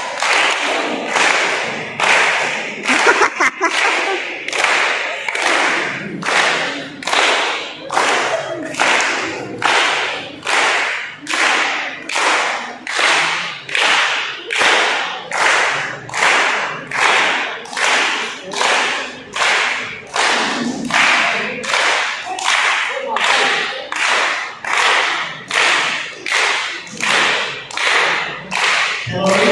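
A group of people clapping in unison to a steady beat, a little more than one clap a second, with group voices singing along underneath.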